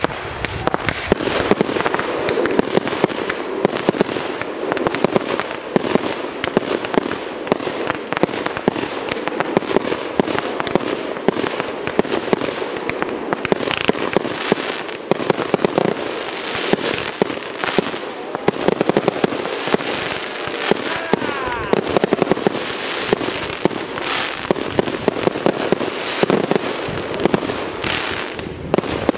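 Fireworks display: a continuous barrage of sharp bangs and dense crackling from aerial shells and crackling-tail effects, with no pause.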